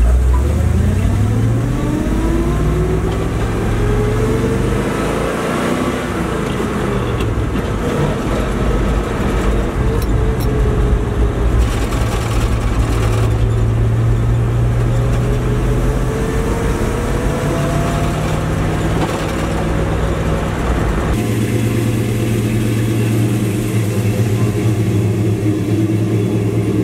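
An old Dodge pickup's engine heard from inside the cab while driving, its pitch climbing and dropping again and again as it accelerates and shifts through the gears. About 21 seconds in it changes abruptly to a steadier engine sound.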